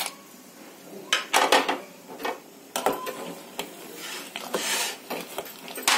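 Steel spoon clinking and scraping against a steel pot in a string of separate knocks and scrapes, while dry fruits are stirred into milk for kheer.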